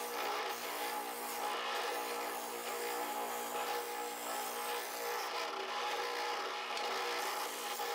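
Benchtop spindle sander running steadily, its sanding drum rubbing on the edge of a wooden ukulele body template as the template is shaped.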